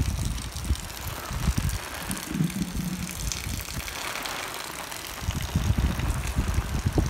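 Cyclone wind buffeting the phone's microphone in irregular gusts over a steady hiss of wind. A brief low hum sounds about two and a half seconds in.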